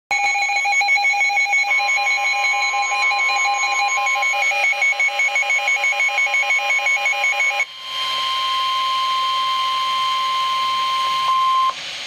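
NOAA Weather Radio receiver going off for a severe thunderstorm warning. Its own alert sounds as a rapid pulsing two-pitch beeping for about seven and a half seconds. The steady 1050 Hz Weather Radio warning alarm tone comes in about two seconds in, carries on alone after the beeping stops, and cuts off shortly before the end.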